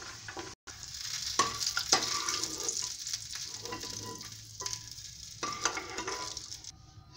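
Hot oil sizzling in a kadhai as fried peanuts are scooped out with a steel spoon, with scrapes and clicks of the spoon against the pan. The sound drops out briefly about half a second in, and the sizzle cuts off near the end.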